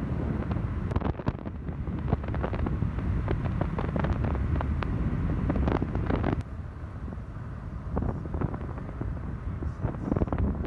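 Wind buffeting the microphone over the steady low rumble of a moving car, with frequent crackles; the sound drops somewhat about six seconds in.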